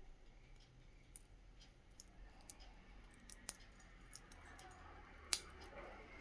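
Cockatiel's beak cracking and husking whole rice grains: faint, irregular small clicks, with one sharper click about five seconds in.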